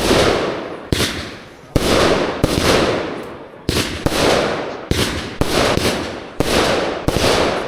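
Funke Sacramentum 30 mm, 100-shot fireworks cake firing: about nine sharp bangs, spaced half a second to a second and a quarter apart, each trailing off over about a second.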